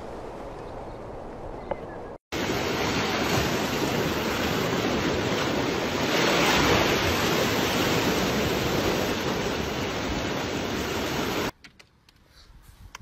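A loud, steady rushing noise, even from low to high, that starts abruptly about two seconds in and cuts off sharply near the end. Before it there is a quieter steady hiss.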